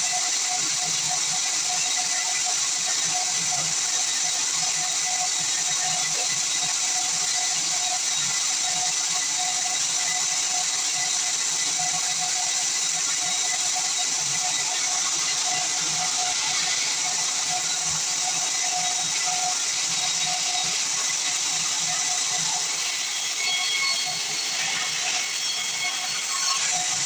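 Sawmill band saw running through a pine log: a steady, high hissing noise over a constant hum, easing slightly a little before the end.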